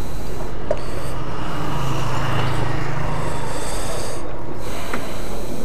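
Steady engine noise with a low hum, a deeper tone swelling for a couple of seconds around the middle.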